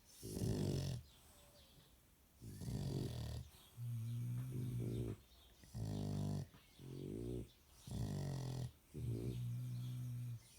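Bulldog snoring in her sleep: a regular run of about seven snores, one every second or so with short quiet gaps, several of them a steady low buzzing tone.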